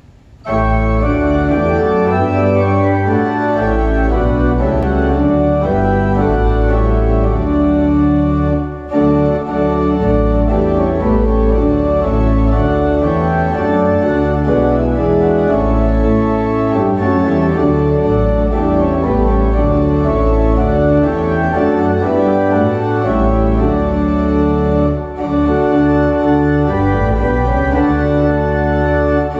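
Organ playing a hymn in full chords on the manuals over a deep pedal bass. It begins about half a second in, with brief breaks between phrases twice.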